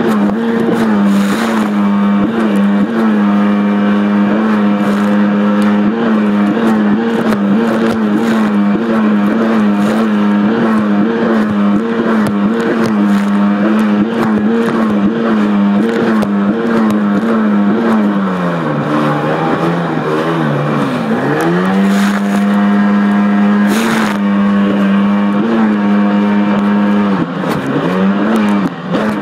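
1993 Sea-Doo XP personal watercraft's two-stroke engine running hard at high, steady revs, its pitch wavering slightly as the hull rides the water. About two-thirds in, the throttle eases off and the engine drops in pitch, then revs back up. Near the end the revs dip and are blipped again.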